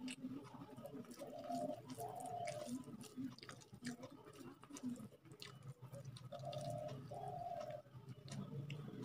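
Fingers working rice and curry on a plate, with short wet clicks of mixing and eating throughout. A bird coos twice in pairs, about a second in and again about six seconds in.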